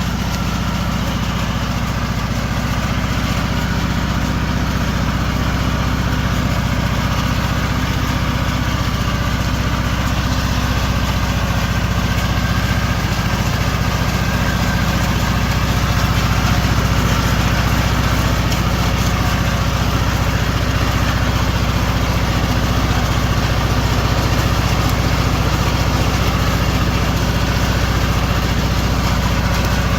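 Riding lawn mower engine running steadily, a low even drone that grows slightly louder about halfway through.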